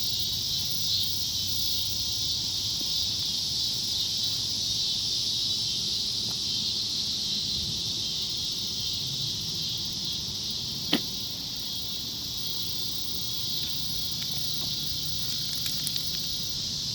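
A steady, high-pitched outdoor insect chorus drones on without a break. One sharp click cuts through it about eleven seconds in, with a few faint ticks near the end.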